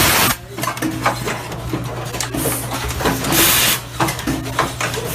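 Automatic tea vacuum packaging machine running: a steady motor hum under quick, irregular mechanical clicks and knocks, with bursts of air hissing, one right at the start and a longer one about three and a half seconds in.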